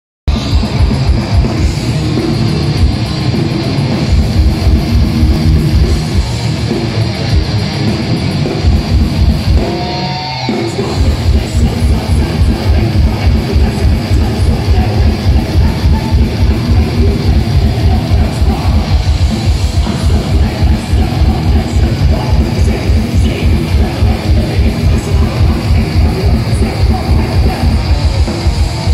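Thrash metal band playing live and loud: distorted electric guitars and bass over fast drumming with rapid kick-drum beats. About ten seconds in the low end drops out briefly under a guitar note bending in pitch, then the fast drumming comes back in.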